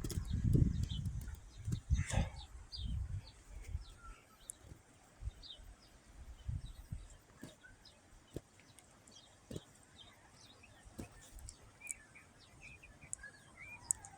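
Birds chirping in short scattered calls, with low thuds and rumbles in the first few seconds and a few sharp clicks.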